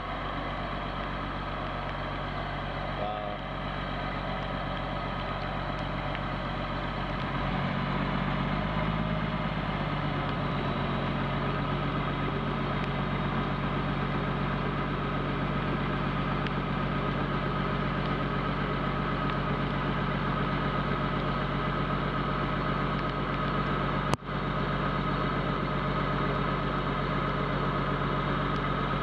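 Crane truck's engine running steadily to drive the hydraulic crane lifting the tank turret. About eight seconds in it speeds up, its pitch rising, and holds at the higher speed. A sharp click and a momentary dropout come near the end.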